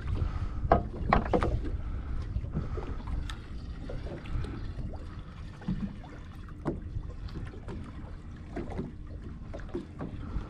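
Water slapping and sloshing against a boat's hull, with wind rumbling on the microphone and scattered small knocks.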